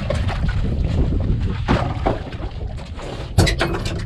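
Steady low rumble with scattered knocks, and one sharp, louder knock about three and a half seconds in that rings briefly.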